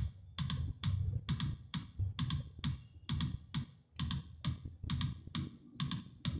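Music with a steady, clicky drum beat, about two beats a second, played from a phone over Bluetooth through a Pioneer DEH-1450B car stereo.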